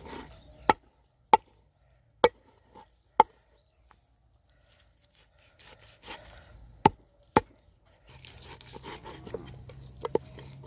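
A cleaver chops raw pork leg into chunks on a round wooden chopping board. There are about six sharp chops at irregular intervals, and a few lighter ones near the end. A faint steady low hum comes in about eight seconds in.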